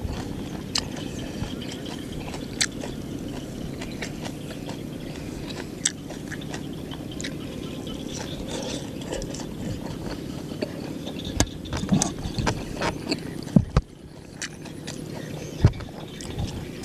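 Hand-eating sounds of a rice crepe (banh chheaov) meal. There is wet chewing and mouth noise, with scattered short clicks and scrapes as fingers tear pieces of the crepe and bean sprouts and handle leaves. Underneath is a steady low background noise.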